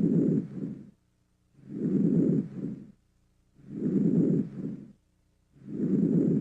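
Normal vesicular breath sounds heard through a stethoscope: soft, low-pitched breathing, about one breath every two seconds. Each breath is a longer inspiratory sound running into a short, fainter first part of expiration, followed by a silent gap.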